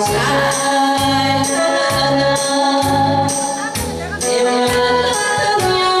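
A woman singing into a handheld microphone over instrumental accompaniment with a steady beat.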